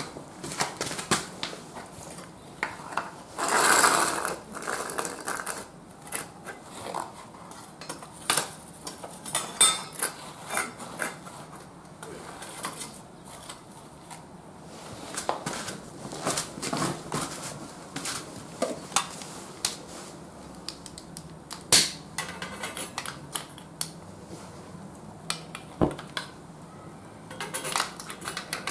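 Scattered metallic clinks and knocks as a small foil-wrapped charcoal starter on its stove base is handled and set onto a wire trivet stand on concrete. There is a scrape about four seconds in and one sharp knock about three-quarters of the way through.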